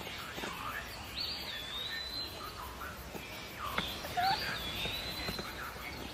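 An animal gives two high whistled calls about three seconds apart. Each starts with a quick upward sweep and then holds a long, nearly steady high note for over a second, over a low outdoor background.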